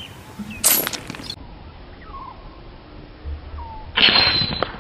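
Two loud, hissing bursts of noise, each under a second long and about three seconds apart, with a few faint, short falling bird chirps between them.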